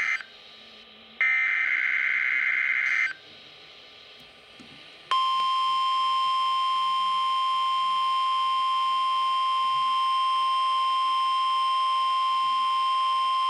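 NOAA Weather Radio Required Weekly Test: a buzzy SAME digital header burst ends right at the start, and another lasts about two seconds. About five seconds in, the steady 1050 Hz warning alarm tone begins and holds to the end. Together the bursts and the tone are the coded alert signal that can switch on weather radio receivers, sent here as a test.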